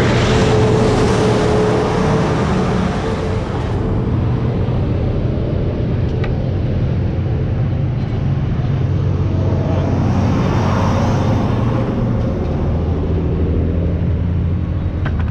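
Road traffic passing close by: a loaded log truck rumbles past in the first few seconds, another vehicle swells past about ten seconds in, over a steady low engine hum.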